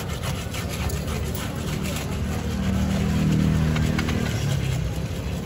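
Long bar spoon stirring crushed ice in a plastic cup, giving a quick run of light clinks and scrapes, then chocolate drink poured from a jug over the ice. A steady low hum runs underneath and swells briefly in the middle.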